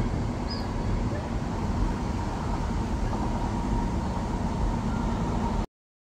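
Steady outdoor background rumble with a faint high chirp about half a second in. The sound cuts off suddenly near the end.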